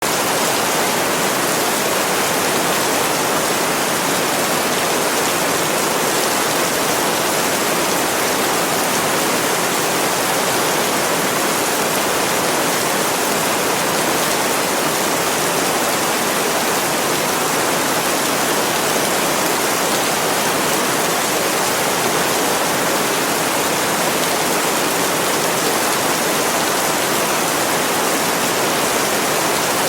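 Steady rain sound for sleep: an even, unbroken hiss with no single drops standing out.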